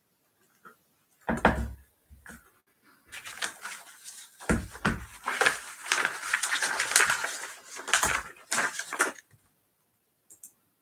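A couple of heavy thumps and some knocks close to the microphone, with several seconds of rustling and clattering between them, dying away about two-thirds of the way through.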